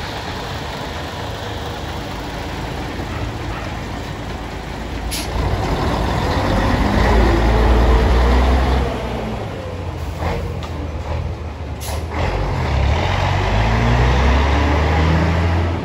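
Scania 111 S's 11-litre diesel engine pulling the truck away. The revs climb, fall away about nine seconds in, then climb again. There are two sharp clicks, about five and twelve seconds in.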